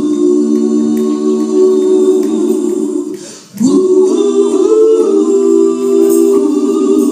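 Gospel choir singing a cappella in close harmony: two long held chords with a short break between them about three seconds in.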